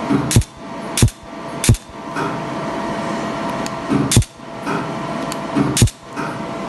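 Vascular laser handpiece firing pulses onto the skin of a leg to treat spider veins. Each pulse is a sharp click, five in all: three about two-thirds of a second apart, then two more further apart. Under them runs a steady background hum.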